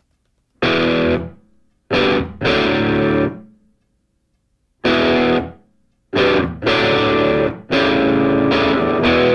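Background rock music: a distorted electric guitar strikes chords and lets each ring for up to about a second, in stop-start phrases with short silences between.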